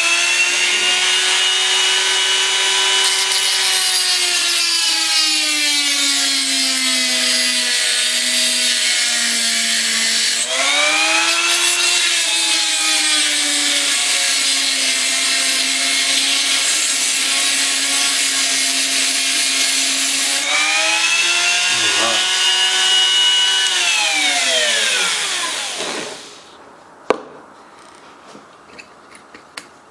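Dremel rotary tool with a small cutting wheel cutting through the metal body of a combination lock, a high steady whine whose pitch sags as the wheel bites in and recovers as it eases off. Near the end the tool winds down and stops.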